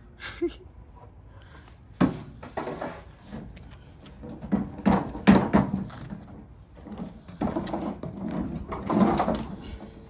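Knocks and bumps of heavy furniture being handled and set in place, with a sharp knock about two seconds in and an irregular run of clatters after it.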